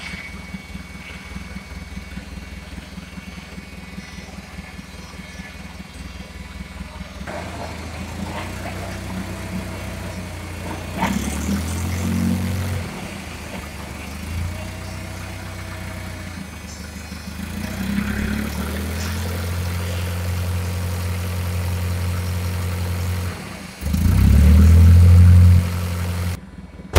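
Forklift engine running, its speed and load rising and falling in steps as the forklift is driven, loudest near the end, then dropping off suddenly just before the end. The forklift is overheating, its radiator steaming, and the engine is short of power.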